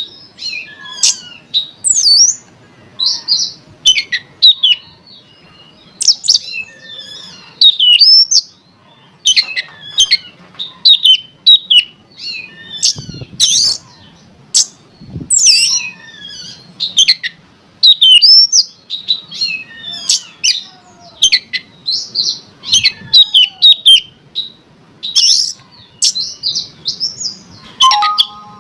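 Oriental magpie-robin (kacer) singing a fast, varied stream of sharp chirps, sweeping whistles and rasping notes in short bursting phrases. It is a lure song used to provoke a caged kacer to sing.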